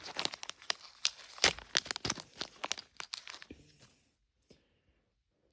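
A small plastic blind bag from a Mini Brands capsule being torn open and crinkled by hand: a quick run of sharp crackles that dies away about three and a half seconds in.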